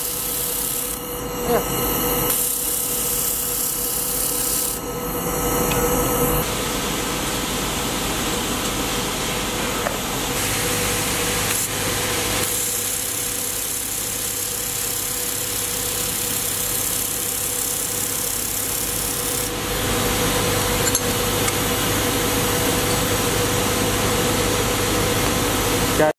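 Handheld laser welder working carbon steel plate: a steady hiss and crackle with a constant hum underneath. The noise changes character abruptly several times.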